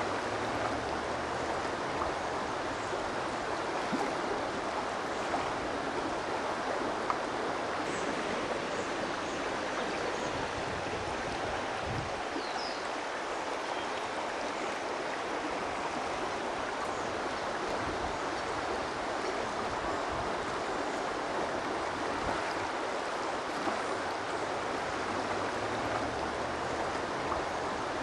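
Creek water flowing steadily: an even, unbroken rush of running water.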